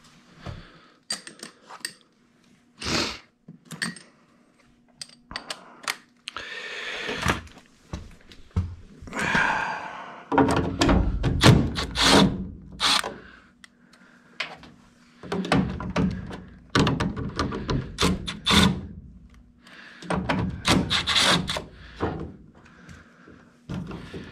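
Milwaukee cordless drill/driver running in several short bursts on the screws of a furnace's plastic condensate trap, amid repeated knocks and clunks of the trap and tool against the sheet-metal cabinet.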